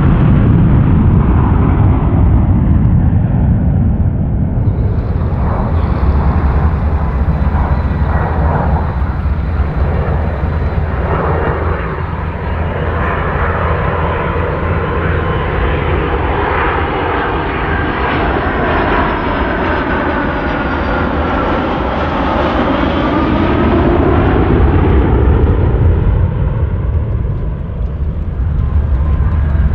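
Boeing 757's twin turbofan engines during low passes with the gear down: a steady, loud jet rumble. As the airliner passes overhead, whining tones slide down and back up in pitch.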